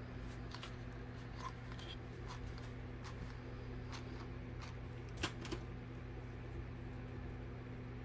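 Faint rustling and scattered clicks of jute rope being wrapped and a mini hot glue gun being handled, with one sharper click about five seconds in, over a steady low hum.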